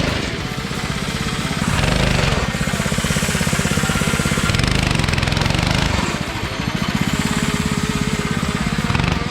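Tillotson 212cc single-cylinder four-stroke engine on a Rascal mini bike, running with rapid low firing pulses, revving up and easing off a few times as it is ridden.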